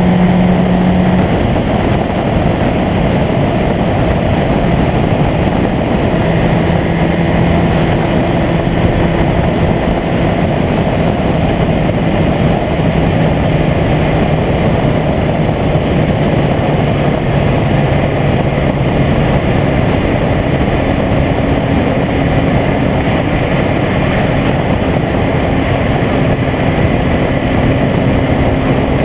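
Mazda Miata's four-cylinder engine at highway cruise, heard under a loud, steady rush of road and wind noise; the engine hum holds steady, shifting slightly in pitch a couple of times.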